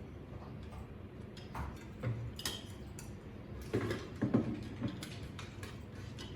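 Irregular light clicks and clinks of small hard objects being handled, with a quicker cluster of knocks about four seconds in.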